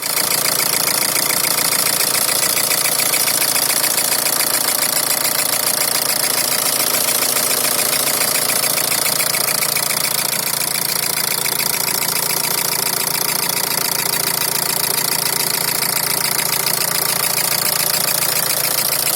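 Ford Focus II 1.8 TDCi four-cylinder turbodiesel idling steadily with a rapid, even knocking beat running through it: an extraneous noise whose source the owner cannot locate.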